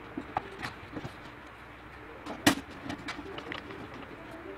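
Light clicks and taps of a gloved hand handling parts inside an open computer case, with one sharper, louder click about halfway through. A low wavering tone runs faintly underneath.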